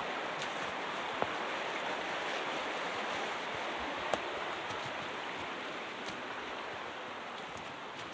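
Steady rush of a creek's flowing water, easing off slightly toward the end, with a couple of faint clicks.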